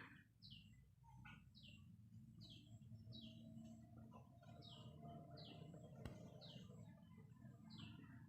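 Faint bird chirping: a short chirp falling in pitch, repeated about once a second.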